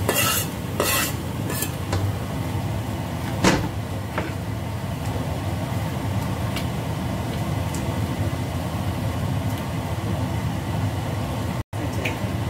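Vegetables sizzling in a stainless steel pan while a metal ladle stirs them, with scraping clicks of the cleaver and ladle against the pan in the first couple of seconds and a sharper clank about three and a half seconds in. The sound cuts out for an instant near the end.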